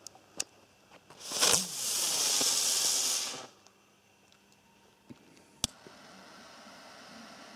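A firework burning with a loud hiss for about two seconds; it starts suddenly and stops sharply. Later there is a single sharp click, then a faint steady hiss as a lighter flame is held to a stick firework's fuse.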